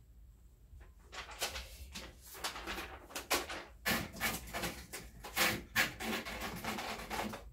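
A sheet of paper rustling as it is handled and fed into a portable manual typewriter, with irregular clicks and knocks from the machine, starting about a second in.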